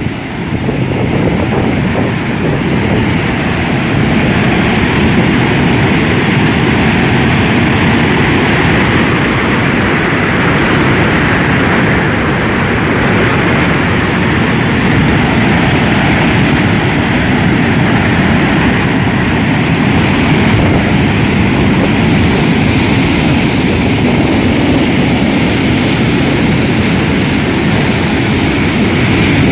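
Waterfall at a dam: a steady, loud rush of falling water.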